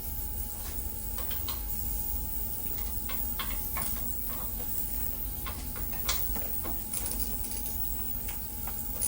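Irregular light metallic clicks and taps of hand tools working on bolts during tractor disassembly, over a steady low rumble with a faint steady tone.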